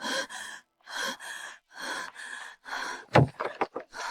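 A person gasping for breath over and over, about two gasps a second, with a few sharp clicks about three seconds in.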